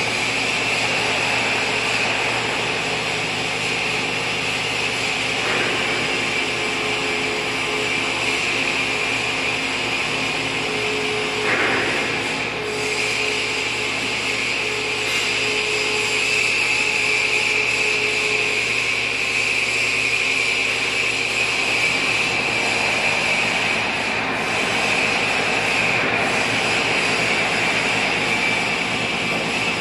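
Toshiba TMD-13 CNC vertical boring mill running under power: a steady mechanical whir with a high hiss, and a faint hum that comes in and fades again midway.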